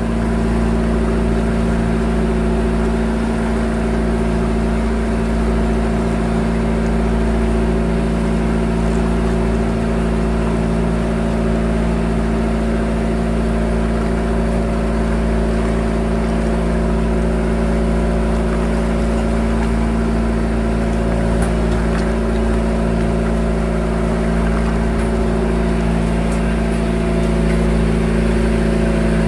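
Engine running steadily at an even speed, a constant hum that never changes.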